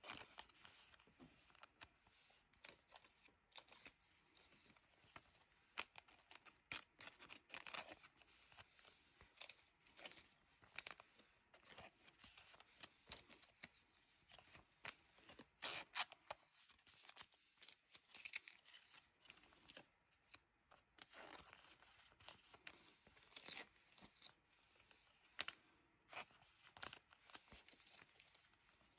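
Pokémon trading cards being slid by hand into thin clear plastic card sleeves: faint, irregular scraping and crinkling of the sleeves, with short sharp clicks as cards and sleeves are handled.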